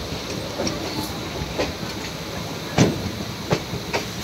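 Passenger train running along the track, heard at a carriage window: a steady rumble of wheels on rail with irregular sharp clacks, the loudest just under three seconds in.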